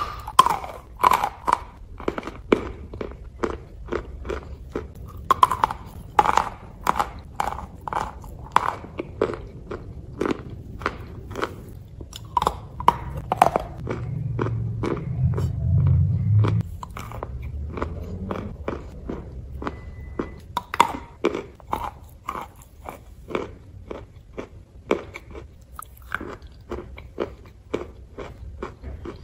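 Close-miked biting and chewing of hard chunks of edible clay: a steady run of sharp, brittle crunches, several a second at times, with a low rumble for a couple of seconds about midway.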